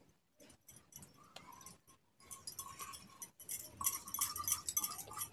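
Glass and metal bangles clinking together and against steel bowls as rice paste is scraped out by hand and poured into the greens. The clinking grows busier and louder in the second half.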